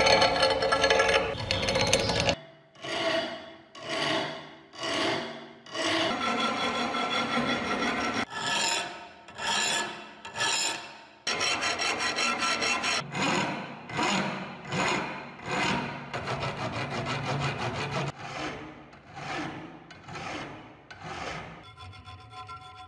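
Steel hand file rasping back and forth across the rusted steel of an antique kukri blade held in a vise. The strokes come in runs about a second apart, broken by spells of faster, continuous rasping.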